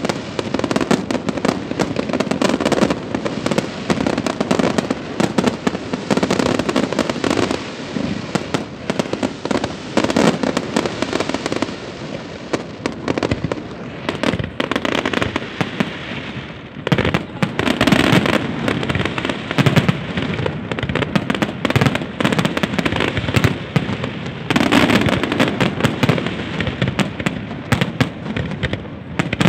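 Aerial fireworks display: a rapid, continuous barrage of shell bursts and crackling, easing briefly a little past halfway before building again.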